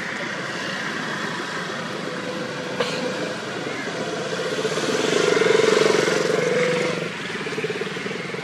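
A motor vehicle engine passing, swelling up about four seconds in, loudest around five to six seconds, then dropping away. A single sharp click is heard just before the three-second mark.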